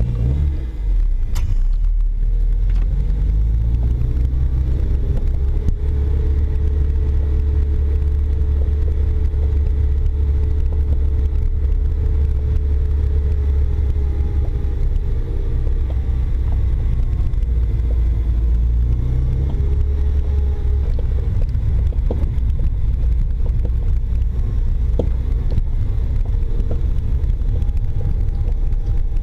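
Toyota MR2 Spyder driving over an uneven road: a steady low rumble of road and engine noise inside the car, with occasional faint knocks from its BC Racing BR coilover suspension, twice around 20 seconds in. The clunk remains with every bolt and nut checked, so its cause is still unknown.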